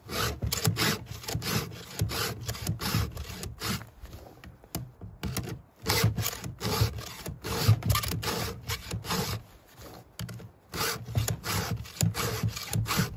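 Hand file strokes of a two-in-one chain-sharpening guide rasping across the cutter teeth and rakers of a Stihl saw chain, sharpening each tooth and filing down its raker at the same pass. The strokes come in quick runs, broken twice by brief pauses.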